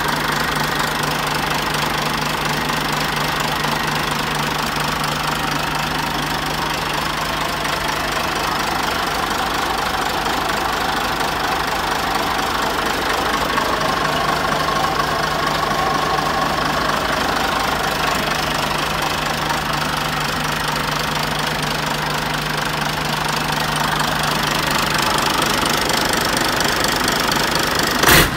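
Nissan inline six-cylinder diesel engine running steadily, with a sharp clack near the end.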